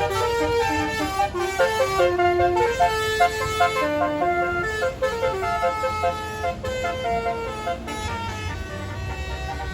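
A bus's multi-note telolet (basuri) horn playing a melody in quick stepped notes, over a low engine rumble.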